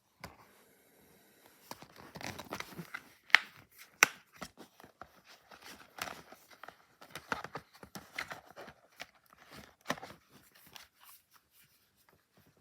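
DVD packaging being handled and opened: crinkling and tearing rustles broken by sharp plastic clicks, the two loudest about three and four seconds in.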